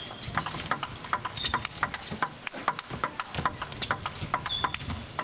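Celluloid-style table tennis ball struck back and forth in a fast rally: rapid, irregular sharp clicks of the ball on the bats and table. Short high squeaks of players' shoes on the court floor come in between.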